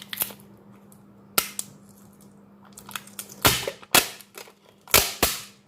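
Sharp cracks and snaps of battery adhesive tearing loose as an Oppo A5s phone battery is pulled out of the frame by its pull tab: about half a dozen separate cracks, the loudest about three and a half and five seconds in.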